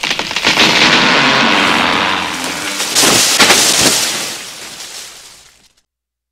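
Intro sound effect: a loud noisy rush full of crackles, with a second surge about three seconds in, fading away to silence shortly before the end.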